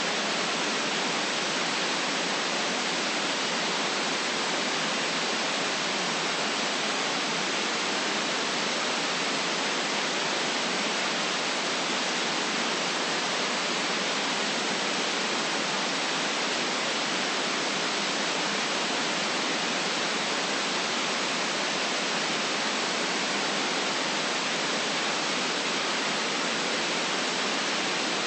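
Steady white noise: an even, unchanging hiss with no low rumble, its weight in the upper range.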